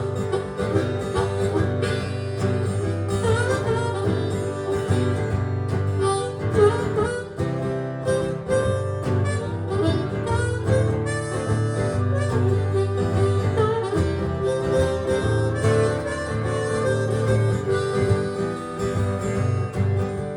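Blues harmonica playing an instrumental solo over acoustic guitar accompaniment, a break between sung verses of a live blues song.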